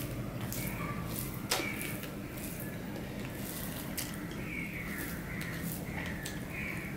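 A hand mixing rice with curry on a stainless steel plate: soft squishing, with a few sharp clicks of fingers against the metal, the strongest about one and a half seconds in, over a steady low hum.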